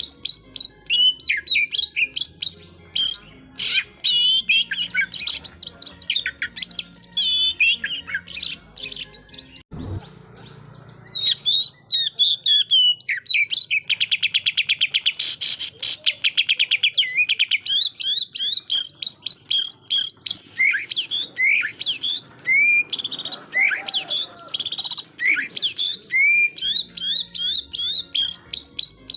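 Oriental magpie-robin (kacer) singing a long, rapid run of varied chirps and whistles in fierce 'tembakan' style, with a fast buzzy trill partway through. About ten seconds in, the song breaks briefly with a low thump.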